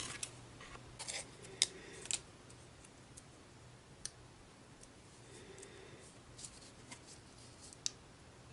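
Scissors cutting out a paper sticker: a handful of sharp, separate snips spread out, with quiet handling in between.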